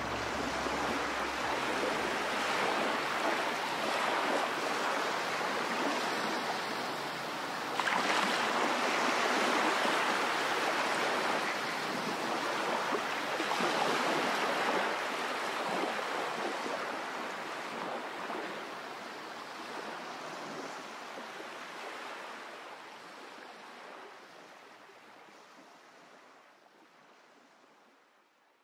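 Rushing noise of sea surf, a steady hiss that jumps louder about eight seconds in and then slowly fades away to nothing.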